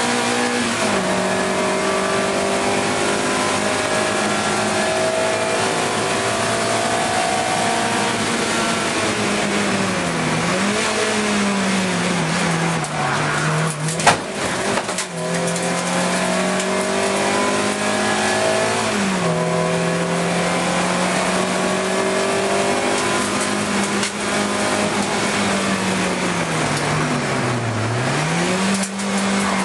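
Race car engine heard from inside the cockpit under racing load. The engine note holds level for long stretches, then dips and climbs back again several times as the driver lifts and changes gear for corners. A single sharp knock comes about halfway through.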